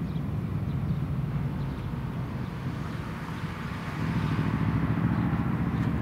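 Low, steady diesel rumble of an approaching freight train's locomotives, getting louder about four seconds in.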